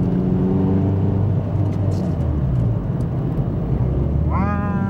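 Steady engine and road drone inside a moving car. About four seconds in, an air horn sounds: its pitch sweeps up briefly as it comes on, then holds steady.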